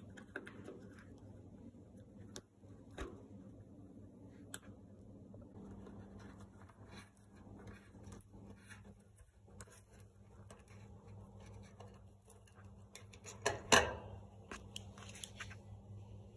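Small scattered clicks and scrapes of screws being backed out of a dryer's front panel, with a louder clatter of metal about fourteen seconds in, over a faint steady low hum.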